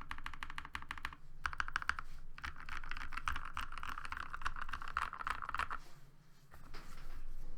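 Typing on a Keychron V4 60% mechanical keyboard with hand-lubed Gazzew linear switches and PBT dye-sub keycaps. The keystrokes come quick and even at first, then in a dense burst of fast typing, with a short lull about six seconds in before a few more strokes.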